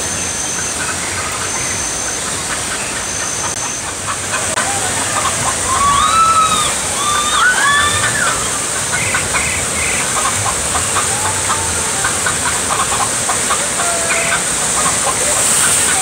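Hens clucking and squawking in alarm from a fox-in-the-henhouse animatronic display, with a cluster of rising-and-falling squawks about six to eight seconds in. Under it runs a steady rush of water from the ride channel.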